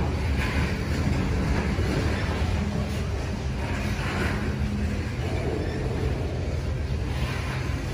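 Freight trains passing at close range: BNSF intermodal flatcars carrying trailers, with a coal train on the far track, making a steady low rumble of steel wheels on rail. A few brief swells of higher hissing wheel noise come and go.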